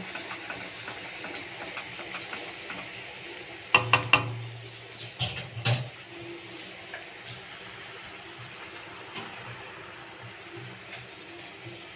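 Food sizzling in oil in a frying pan, a steady hiss, with a cooking utensil knocking against the pan a few times about four to six seconds in as the food is stirred.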